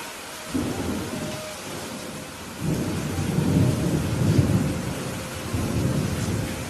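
Thunder rumbling over steady rain. The rumble starts suddenly about half a second in, swells again about two and a half seconds in and fades away near the end, while the rain's hiss carries on throughout.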